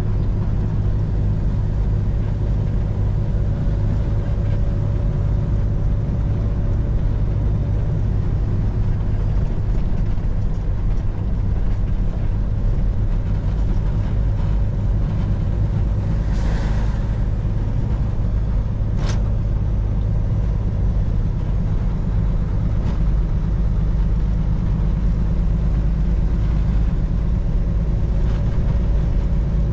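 Semi truck engine and road noise while driving at a steady speed, a constant low drone as heard from the cab. A brief hiss a little past halfway, then a sharp click.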